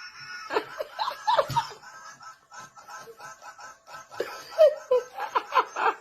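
A person laughing: a fast, even run of short laughs in the middle, then louder laughs near the end.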